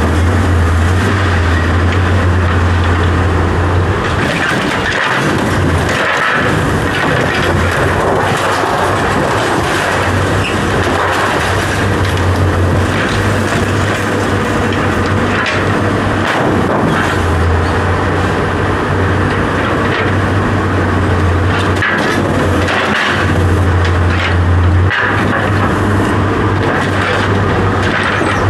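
A steady, loud low mechanical drone, like a running engine, with scattered knocks and clatter over it.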